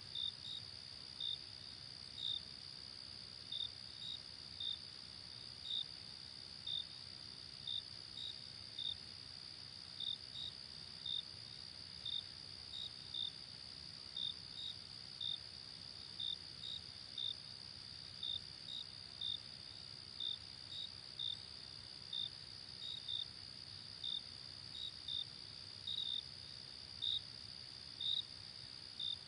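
Night-time insect chorus: short, high chirps at one pitch, irregularly spaced at roughly one and a half to two a second, over a continuous high trill and a faint low rumble.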